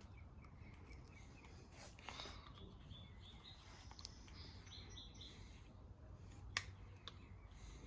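Near silence: a faint low hum with a few small sharp clicks, one clearer than the rest about six and a half seconds in.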